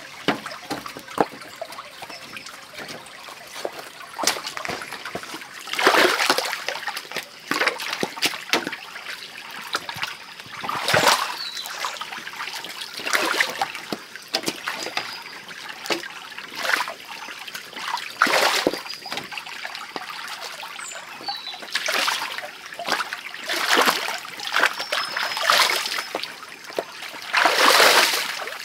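Shallow stream water splashing and sloshing as stones are lifted and dropped into it by hand, with sharp clicks of stone knocking on stone over a steady trickle. The splashes come every few seconds, and the biggest is near the end.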